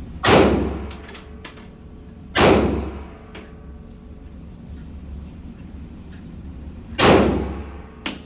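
Three single pistol shots from a 9mm Glock, each a loud crack with a ringing tail: two about two seconds apart, then a third after a pause of about four and a half seconds. Fainter sharp clicks come between the first two shots.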